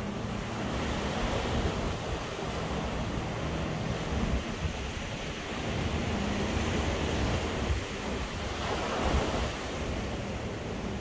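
Ocean surf washing onto the beach, swelling and easing every couple of seconds, with wind buffeting the microphone.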